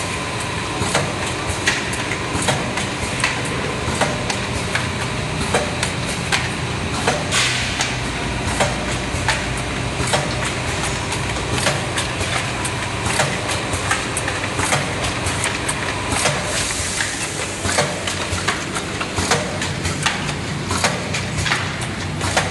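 Automatic linear cartoning machine running: steady mechanical noise with sharp clacks of its pushers and guides, about one or two a second.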